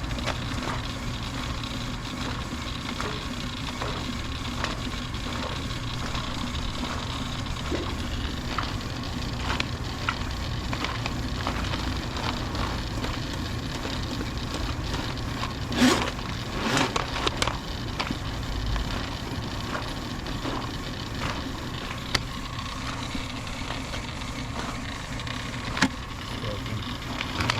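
A motor or engine running steadily, with scattered knocks and clattering over it, the loudest cluster about sixteen seconds in.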